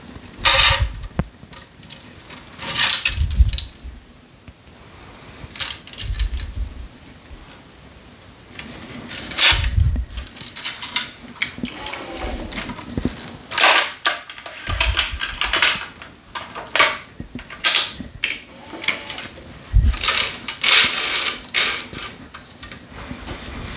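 Tennis string rasping as cross strings are pulled through the main strings of a racket clamped in a stringing machine. The pulls come as a series of brief scraping zips, with knocks and clicks from the machine and its clamps between them.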